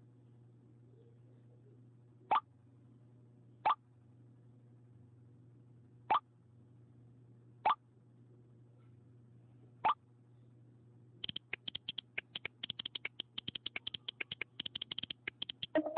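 Five iPhone iMessage incoming-message pops, each a short upward blip, arriving one to two and a half seconds apart as new texts come in. From about eleven seconds in, rapid clicks of the iOS on-screen keyboard typing a reply, and the message-sent whoosh begins right at the end.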